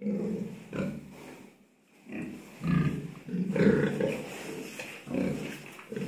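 Young pigs grunting in a run of short, separate grunts as they crowd together.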